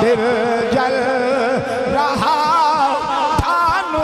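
A man's voice chanting a verse of Urdu devotional poetry in a melodic, ornamented style. The held notes waver and slide, sung into a microphone.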